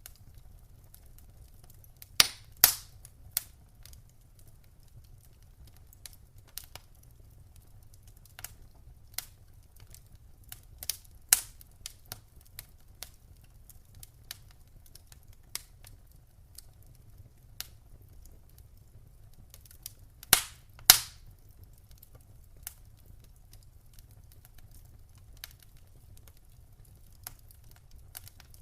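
Fire crackling: scattered sharp pops and snaps at irregular intervals, the loudest coming in pairs about two seconds in and again about twenty seconds in, over a faint low rumble.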